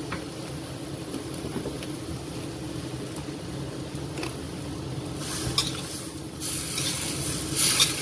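Spatula stirring simmering broth in a pan, the liquid sloshing, with a few light clinks of the utensil against the pan over a steady low hum. The stirring gets louder in the last three seconds.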